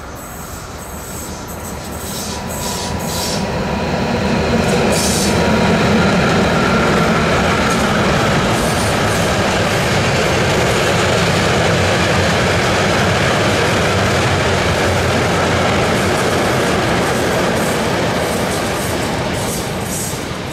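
Kaindl container freight train hauled by a pair of ÖBB 1163 electric locomotives passing on the rails: a steady rumble of wheels with clickety-clack, growing louder over the first few seconds as it comes near, holding through the middle as the wagons go by, and fading near the end.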